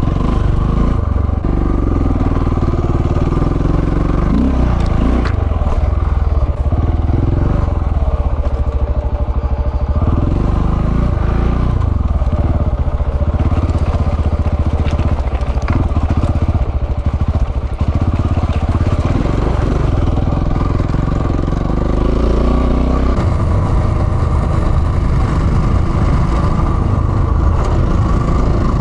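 Motorcycle engine, the single-cylinder of a KTM 690, running as the bike is ridden, its revs rising and falling.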